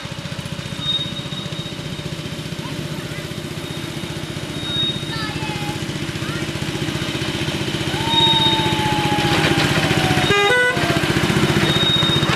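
Small engine of a ride-on miniature diesel-outline locomotive running steadily as it hauls a passenger train past. It grows louder about eight seconds in as the engine draws near, and a short horn toot sounds about ten seconds in.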